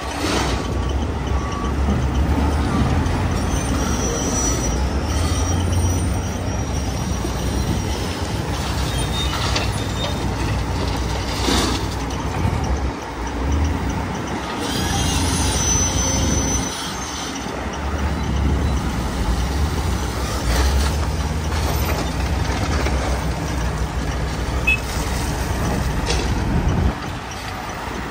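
Diesel earthmoving machinery and dump trucks working: a low engine rumble that rises and falls, broken by several sharp knocks.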